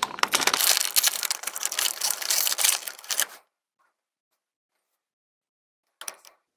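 Packaging pouch of a new inkjet ink cartridge crinkling and tearing as it is opened by hand: a dense run of crackles that stops about three and a half seconds in. A brief rustle follows near the end.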